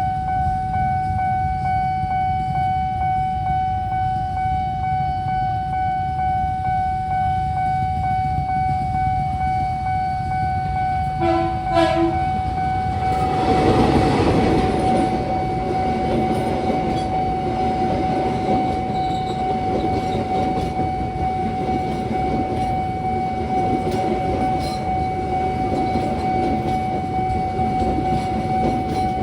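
Railway level-crossing warning alarm sounding a continuous steady tone. About 11 seconds in a train horn gives two short blasts, and from about 13 seconds a train passes over the crossing with a rumbling of wheels on the rails that lasts to the end.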